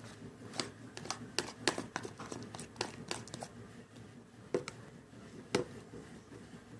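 Slime being handled, giving irregular sticky clicks and crackles, with a few louder pops about half a second in, around a second and a half in, and twice near the end.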